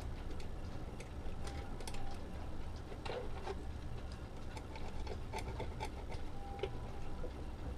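Scattered small clicks and ticks of hands working thin wires into a screw terminal strip, over a steady low hum.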